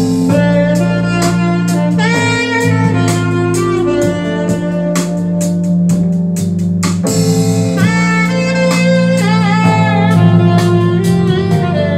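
Jazz-style instrumental music with a saxophone lead over steady bass and drum hits, played back through a pair of small Gradiente Piccola bookshelf speakers with aluminium cabinets.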